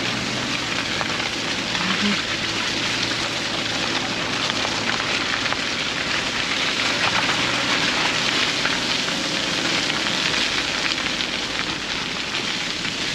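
Steady crackling patter with a faint low engine hum, heard from inside a Subaru Crosstrek driving a rough, muddy dirt track.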